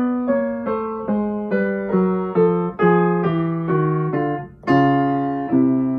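Upright acoustic piano playing a scale in harmonized notes, stepping downward one chord about every 0.4 s. It ends on a chord struck near the end and held for about a second.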